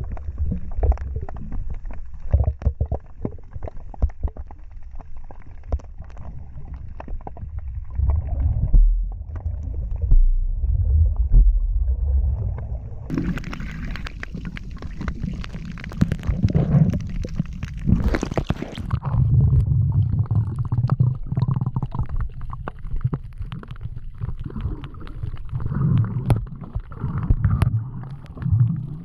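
Muffled underwater rumbling and gurgling heard through a diver's camera, with many small clicks and knocks. About halfway through, a brighter hissing, splashing stretch lasts several seconds, then the low muffled rumble goes on.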